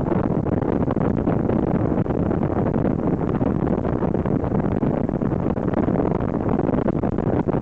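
Inflatable motorboat under way: a steady, loud rush of engine noise, water along the hull and wind buffeting the microphone.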